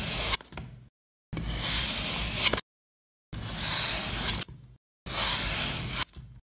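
Metal blade slicing down through a block of packed kinetic sand: repeated gritty hissing strokes about a second long, each ending in a sharp click, with dead silence between them.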